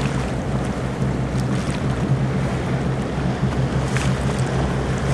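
Motorboat's engine running steadily under way, a low drone, with wind buffeting the microphone and water rushing past the hull.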